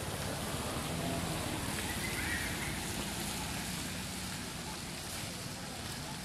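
Steady rain falling on forest foliage: a continuous even hiss. A brief, faint high call sounds about two seconds in.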